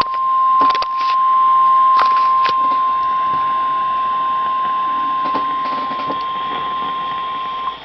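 NOAA Weather Radio's 1050 Hz warning alarm tone: one long steady beep from the weather radio's speaker, with a few faint clicks of static over it, cutting off just before the end. It is the tone that signals a warning is about to be read, here a severe thunderstorm warning.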